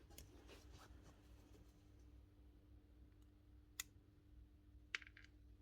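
Near silence with a faint steady hum, broken by two small faint clicks, about four and five seconds in, as parts of a pneumatic pinner are handled during disassembly.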